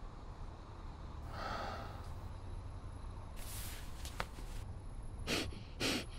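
Men breathing hard and sighing, then fabric rustling as stocking masks are pulled over their heads, and a few short sharp clacks near the end.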